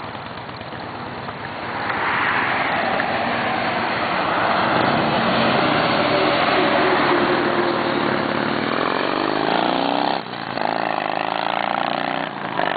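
A 2004 Harley-Davidson Ultra Classic's V-twin engine pulling away and accelerating down the road, its revs climbing and dropping twice near the end as it shifts gears, mixed with the noise of a large vehicle passing close by.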